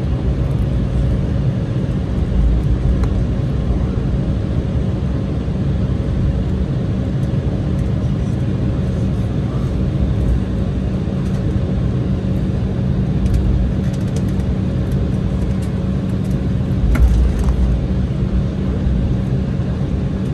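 Steady drone and hum inside an Embraer E190 airliner cabin on the ground before takeoff, with a few light clicks and a short knock about 17 seconds in.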